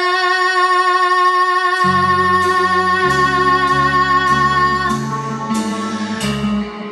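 Band music without singing: a long held note rings over guitar, and low bass notes come in about two seconds in, with light, evenly spaced high percussion taps.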